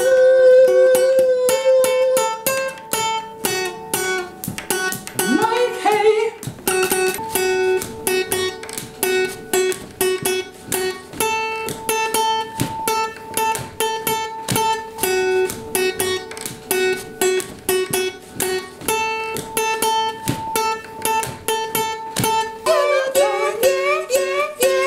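Acoustic guitar strummed in a steady rhythm, with a blues harmonica playing over it. The harmonica slides up into a long held note at the start, then plays repeated held and chopped notes.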